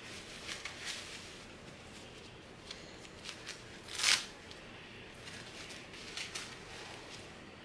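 Faint rustling and crinkling of packing wrap being peeled off a reborn doll's head, with scattered small crackles and one sharper crackle about four seconds in.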